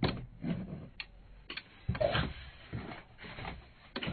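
Boxed Funko Pop figures in clear plastic protector cases being handled on a table: several sharp clicks and taps spread out, with soft rustling in between.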